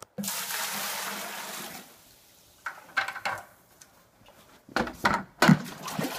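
Water and rinsed aquarium gravel poured from a plastic bucket, a steady rush lasting about a second and a half, followed by a few short splashes and several sharp clunks near the end.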